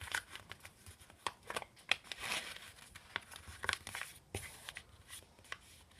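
A sheet of paper being folded and creased by hand: irregular crisp rustles and crinkles, with a longer rustle about two seconds in.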